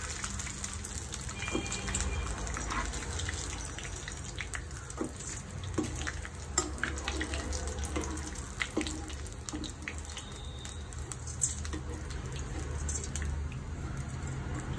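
Hot cooking oil sizzling in a pot, with scattered crackles and a few light utensil clicks.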